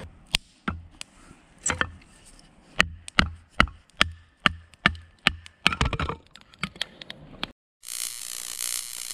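Batoning kindling: a fixed-blade knife driven down through a block of light softwood by striking its spine with a wooden baton, about fifteen sharp wooden knocks at roughly two to three a second. It stops abruptly, and a steady hiss takes over near the end.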